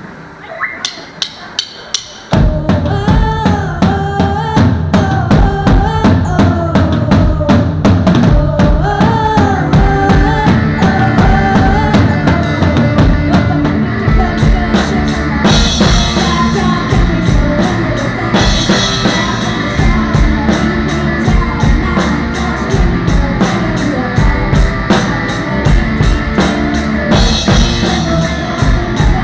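Four quick, evenly spaced clicks, a count-in, then a band comes in loud about two seconds in, the drum kit heard close with heavy bass drum and snare hits under a wavering melody line.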